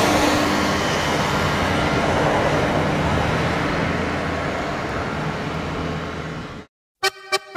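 Road traffic on the bridge roadway, a steady rush of tyres and engines that slowly fades and then cuts off suddenly. After a moment of silence, music begins near the end.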